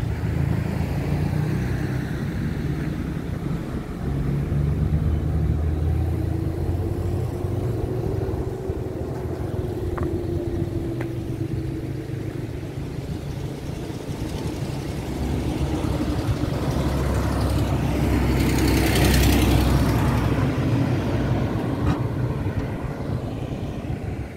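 Street traffic: motor vehicles driving past with engines running. A louder vehicle passes close about three-quarters of the way through.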